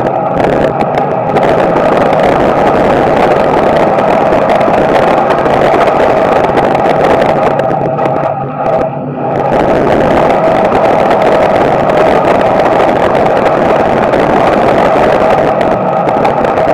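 Small-block Chevy V8 of a dirt-track street stock car at racing speed, heard from inside the cockpit: loud and steady, dropping briefly about eight seconds in before coming back up.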